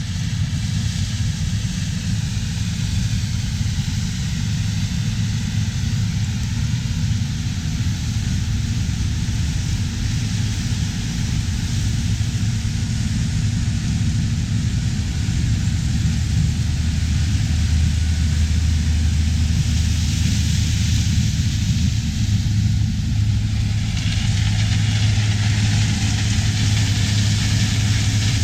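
Diesel engines of heavy harvest machinery running steadily: a low drone with a hiss over it, growing a little louder about halfway through.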